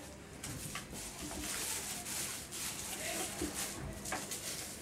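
Clear plastic packaging bag crinkling and rustling in the hands in repeated bursts as it is worked open.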